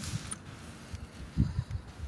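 Faint handling noises with a few dull low thumps, the clearest about a second and a half in.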